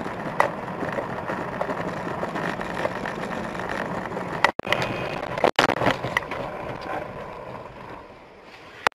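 Steady car road and engine noise as picked up by a dashcam, with a few short sharp knocks, broken twice by abrupt cuts about four and a half and five and a half seconds in, and fading lower near the end.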